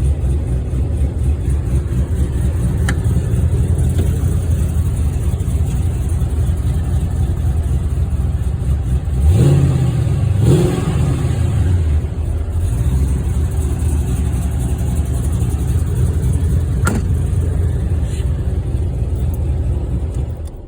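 Cammed LS1 V8 in a 2001 Holden VX Commodore Berlina, fitted with a Crow camshaft, idling, blipped twice in quick succession about halfway through, then switched off at the very end.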